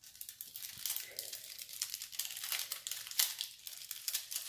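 Clear plastic cover film being peeled back from the sticky surface of a diamond painting canvas, crinkling and crackling irregularly, busier from about a second in.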